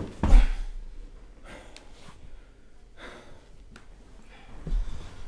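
A heavy thud, then a man's heavy breathing and gasps with a few small scuffs and knocks, and another thud near the end.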